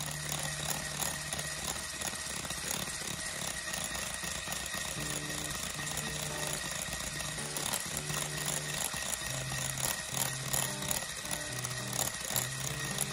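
Electric hand mixer running steadily, its wire beaters whipping thick batter in a glass bowl, with a steady high motor whine. Background music plays underneath.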